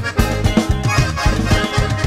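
Instrumental break of a norteño cumbia song: bass and rhythm instruments on a steady dance beat with a melody line over them, without singing.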